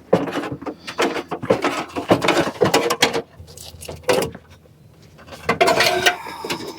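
Sheet-metal top, fan cage and panels of a Trane condensing unit being unfastened and lifted off: a run of irregular metallic clatter and knocks, a short lull, then another burst near the end.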